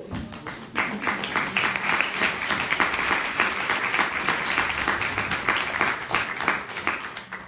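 Audience applauding: many hands clapping, swelling in about a second in and dying down near the end.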